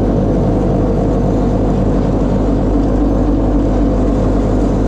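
Steady, loud drone of farm machinery running, with a low hum and a few held tones.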